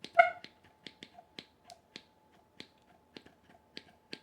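A small air horn's trigger clicked over and over, about four light clicks a second, unevenly spaced, with no blast from the horn, which its owner takes to be finished.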